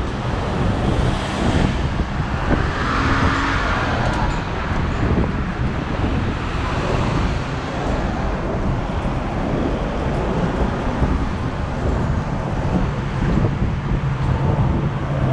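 Steady road traffic noise, with a vehicle passing about three seconds in.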